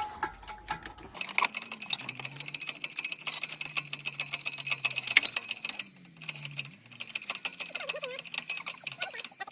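Hoist lifting the engine out of the car: a fast, even run of mechanical clicks, with a low hum from about a second in that dips and rises in pitch and drops out near seven seconds.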